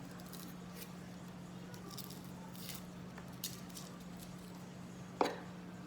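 Dry onion skin being peeled by hand: faint, papery crackles and scratches in scattered bursts, then a single sharper knock about five seconds in. A steady low hum runs underneath.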